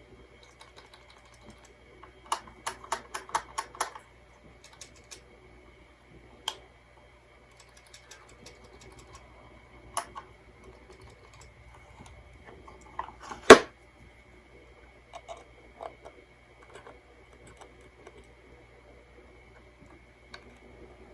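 Small plastic clicks from handling a transistor radio and working its switches: a quick run of about eight clicks, then scattered single clicks and one louder knock about two-thirds of the way through. The radio itself plays nothing.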